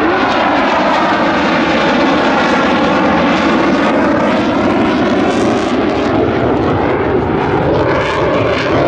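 Two Dassault Mirage 2000 fighter jets flying past in close formation, their M53 turbofan engines making loud, steady jet noise with a slow phasing sweep running through the rush as they pass and move away.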